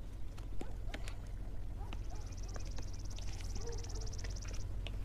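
Outdoor ambience over a steady low hum: a high, rapid trill starts about two seconds in and lasts over two seconds, with scattered light clicks and taps from footsteps and a handbag being handled.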